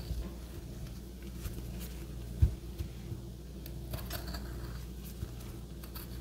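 Kitchen knife scoring tomato skins on a wooden cutting board: a few faint clicks and light taps, with one dull knock about two and a half seconds in, over a low steady hum.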